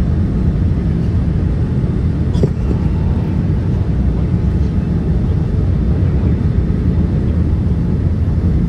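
Steady low rumble inside the passenger cabin of a Boeing 787-9: its Rolls-Royce Trent 1000 turbofans and the rushing airflow, heard during the descent on final approach.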